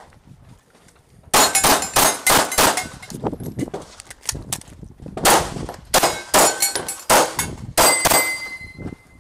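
Airsoft pistol firing rapid shots in quick strings, the BBs hitting steel plate targets with sharp metallic clangs and pings that ring briefly. The shooting starts about a second in, pauses briefly near the middle, and picks up again for a second string.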